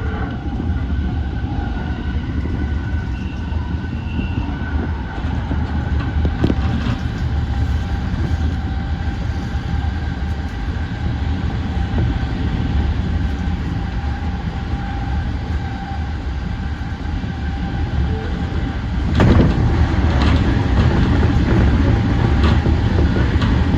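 E235-1000 series electric train running at speed, heard from inside the car: a steady rumble of wheels on rail with a faint steady hum and occasional clicks. About 19 seconds in, the rumble suddenly becomes louder and stays louder.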